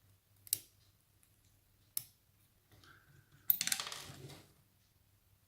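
Small metal clicks from handling the parts of a gutted pin-tumbler lock, then a sharp clack about three and a half seconds in followed by a rattle lasting about a second, as a pin shoots out with its spring.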